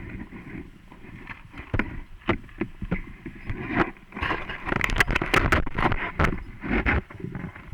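Mountain bike rattling and knocking over a rough dirt singletrack, with wind rumbling on the microphone. A dense run of sharp clatters comes in the middle of the stretch.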